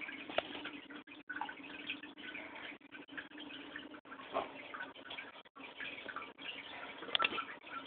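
Aquarium filter running: water trickling and splashing over a steady low hum from the motor, with a few small clicks.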